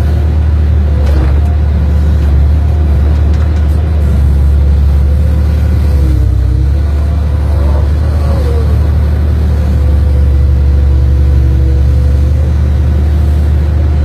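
Excavator's diesel engine running steadily under load while it digs, with a hydraulic whine that dips and rises about halfway through as the controls are worked.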